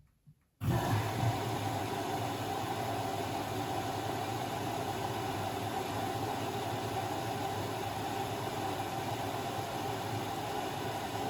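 Blomberg WAF 7442 SL washing machine: after a few faint clicks, a steady hissing, humming running sound cuts in suddenly about half a second in and holds level.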